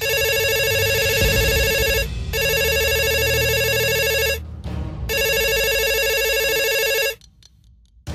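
Smartphone ringtone sounding for an incoming WhatsApp voice call: three rings of about two seconds each, a fast-pulsing electronic tone with short gaps between rings. It stops about seven seconds in, when the call is picked up.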